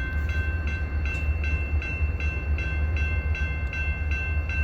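Electronic railroad crossing bell dinging about three times a second, over the steady low rumble of a train at the crossing.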